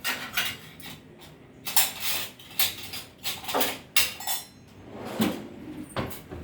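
Metal kitchenware clattering against a kadai: a string of short, uneven knocks and scrapes, about one or two a second.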